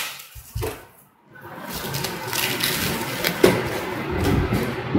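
Clear plastic stretch wrap around a parcel rustling and crinkling as hands rub and pull at it, with a sharp crackle about three and a half seconds in.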